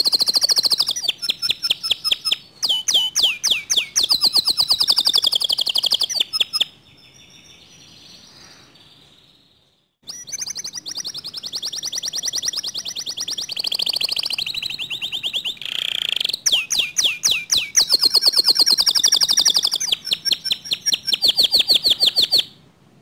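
Domestic canary singing loud, fast song: rapid trills and runs of repeated high chirps. The song stops for about three seconds in the middle, then resumes and runs to just before the end. This is a full 'gacor' song of the kind played to provoke other canaries into singing.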